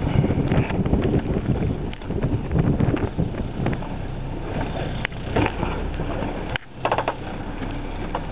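Wind buffeting the microphone on a small boat over the steady low rumble of the boat's motor, with a few brief gusts and knocks.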